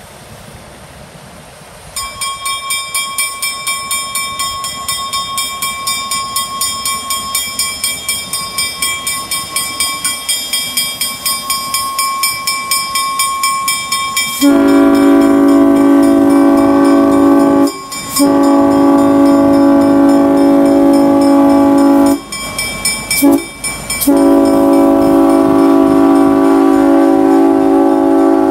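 Locomotive bell ringing steadily at about two to three strokes a second, then a Nathan M5 five-chime air horn sounds the grade-crossing signal, long, long, short, long. The horn is the loudest sound and warns traffic at the road crossing.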